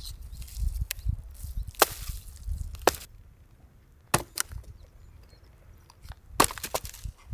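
Axe chopping and breaking dry dead tree stumps and roots: a handful of sharp, separate woody knocks at uneven intervals, with a quick cluster of strikes near the end.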